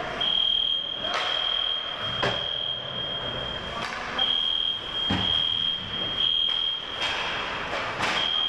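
A steady high-pitched electronic alarm tone, like a fire alarm sounder, breaking off briefly several times. Under it, ice hockey play goes on, with skates scraping the ice and sharp clacks of sticks and puck.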